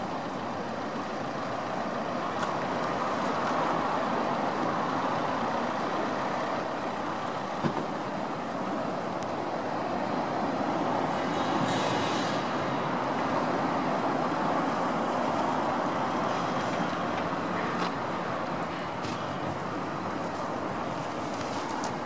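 Steady noise of distant road traffic, with a couple of faint clicks; no gull calls are heard.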